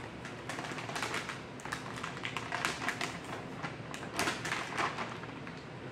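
Plastic food packaging crinkling and rustling as it is handled, in irregular crackles with louder bursts about a second in, around the middle and near the end.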